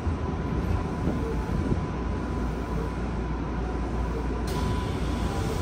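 Tokyu 5050 series commuter train running, heard inside the car: a steady rumble of wheels on rails with a faint steady high tone over it. About four and a half seconds in, the hiss grows brighter.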